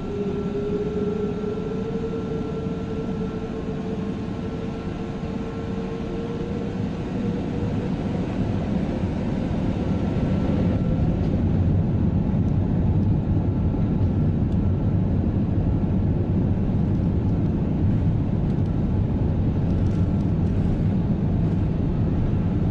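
Airbus A380 engine and air noise heard from inside the cabin: a steady low rumble with a faint whine that rises slightly in pitch over the first several seconds, the noise growing a little louder about halfway through.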